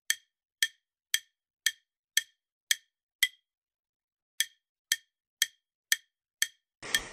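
Quiz countdown timer sound effect: short, sharp ticks about two a second, with a pause of about a second midway. Just before the end a louder rushing sound starts.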